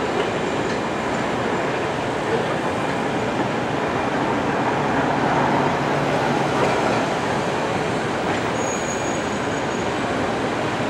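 A train running steadily on its track, an even, continuous noise of wheels and rolling stock.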